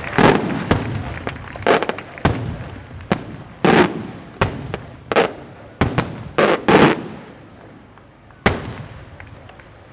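Aerial firework shells bursting overhead: a rapid string of sharp bangs, the loudest cluster in the middle trailing off in a rolling echo, then one last sharp crack near the end.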